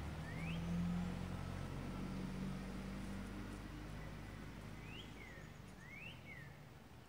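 A bird calling outdoors in short up-and-down chirps, once at the start and again about five and six seconds in, over a low hum that slowly fades away.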